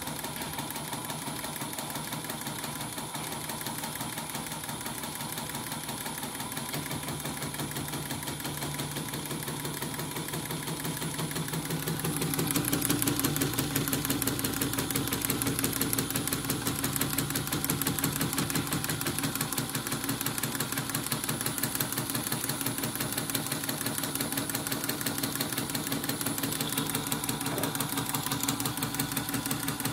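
CNY embroidery machine, covers off, stitching out a design: a fast, even needle-and-hook rhythm over a steady motor hum, louder from about 12 seconds in. It is running on a newly fitted replacement motor, and the stitching is now neat rather than skipping.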